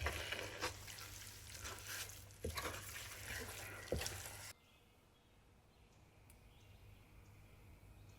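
A spoon stirring thick, sticky semolina halwa in a pot: soft wet squelching with a couple of sharper knocks. About halfway through the sound cuts off abruptly to near silence.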